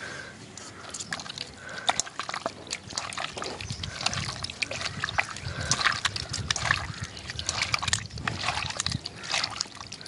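Clotted goat blood squeezed and kneaded by hand in a metal bowl: irregular wet squelching and sloshing with small clicks as the clots are broken up and dissolved.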